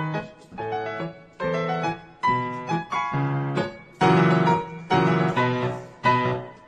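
Background piano music: chords and notes struck about twice a second, each dying away, loudest about four seconds in.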